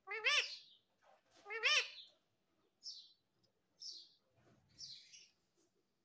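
Rose-ringed (Indian ringneck) parakeet calling: two loud calls that rise and fall in pitch in the first two seconds, then three shorter, softer high-pitched sounds.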